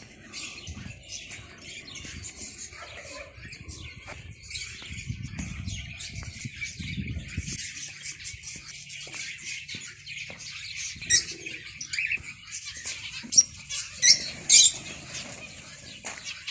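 Many small birds chirping at once, a constant high twittering with wings fluttering, and a few louder sharp calls about eleven and fourteen seconds in.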